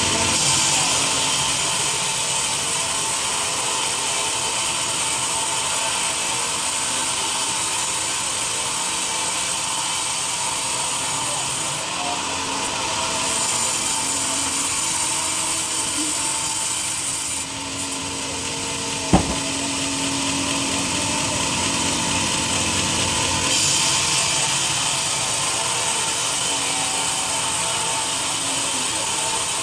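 Sawmill saw cutting through a teak log: a steady sawing noise whose high hiss drops away twice, with one sharp knock about two-thirds of the way through.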